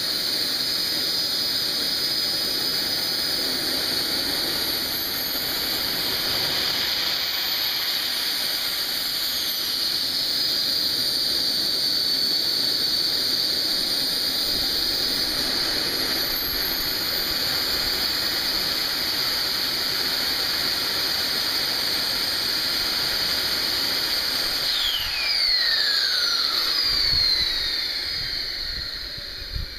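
AMT AT-180 model jet turbine running steadily, a high whine over a rushing exhaust hiss. Near the end it is shut down and the whine falls away as the turbine spools down.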